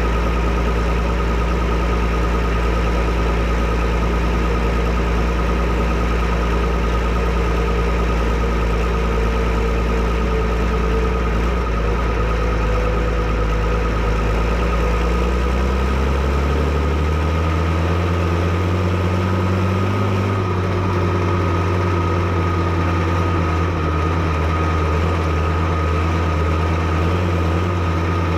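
Fiatagri 115/90 tractor's 5.9-litre six-cylinder FIAT diesel running steadily at low speed. About halfway through, engine speed rises smoothly over a few seconds, then holds at a faster, steady speed.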